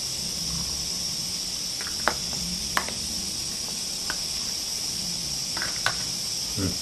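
A few light clinks of bowls against a stainless steel pot as ramen noodles and broth are scooped out, two of them close together near the end, over a steady high-pitched hiss.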